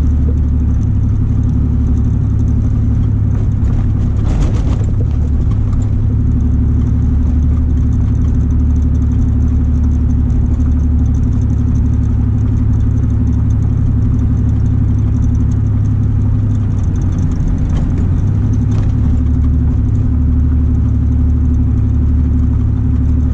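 1994 Chevy S10 pickup's straight-piped exhaust, with no muffler, droning loud and low while cruising, heard from inside the cab.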